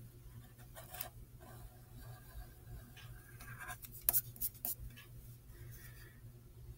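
A pencil scratching on drawing paper in short strokes, with a few sharp clicks about four seconds in that are the loudest sounds.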